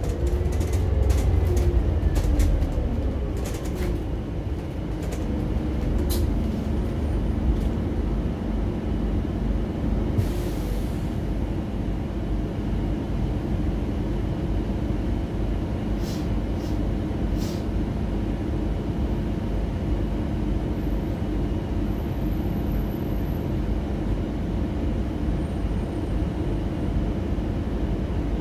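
Interior sound of a Scania N280UD compressed-biogas double-decker bus on the move: a steady low rumble from the engine and drivetrain, with a whine falling in pitch over the first few seconds as the bus slows. A short hiss of air comes about ten seconds in, and light rattles and clicks come and go.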